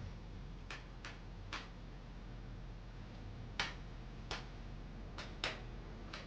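Eight sharp, uneven clicks over about six seconds, over a faint steady low hum; no snore is heard.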